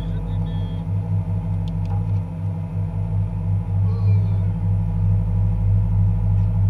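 An engine on board the boat running steadily: a loud, low hum that pulses slightly.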